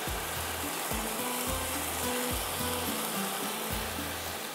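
Biryani masala sizzling steadily in a pot on a hot gas stove, under soft background music.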